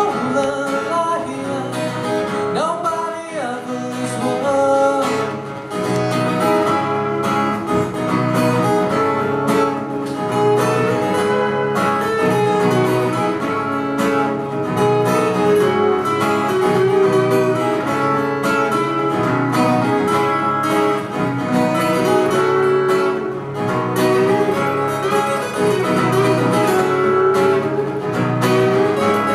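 Live acoustic music led by a guitar, played continuously.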